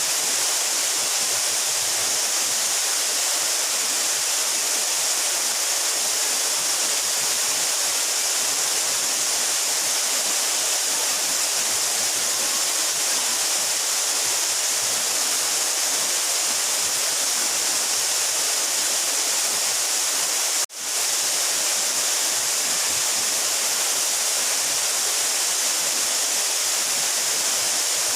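Steady rush of water falling from a 12-metre mountain waterfall, an even hiss with most of its strength high up. It cuts out for an instant about two-thirds of the way through, then comes straight back.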